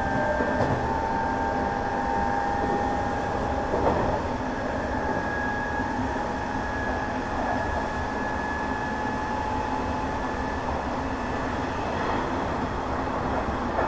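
Hanshin 1000 series electric train running: a steady rumble of wheels on rail under a whine from the traction motors that drifts slowly in pitch, with one knock about four seconds in.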